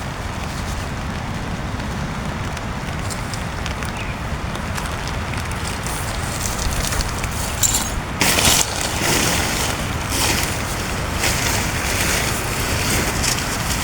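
Strong wind and heavy rain: a steady low rumble of wind buffeting, turning louder and gustier about two-thirds of the way through, with bursts of hissing rain.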